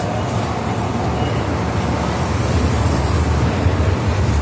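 MTR M-Train heard from inside the passenger car while it runs: a steady, deep rumble of wheels on rail and running gear with a hiss of air over it. It grows a little louder about two seconds in.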